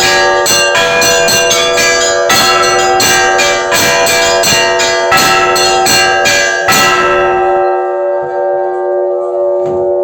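Orthodox church bells ringing, heard from inside the belfry: rapid strikes on several bells over their steady ringing tones. The strikes stop about seven seconds in, and the bells ring on and slowly die away.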